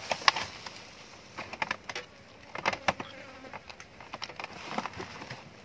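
Irregular clicks and rustles over a faint insect buzz.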